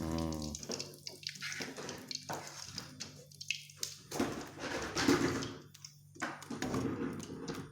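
A pot of vegetable soup on the stove, liquid bubbling and splashing in uneven bursts.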